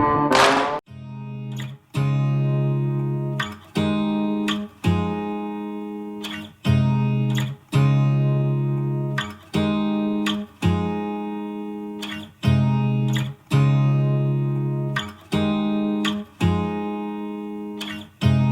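Guitar music: a chord played about every second or so, each ringing and fading before the next.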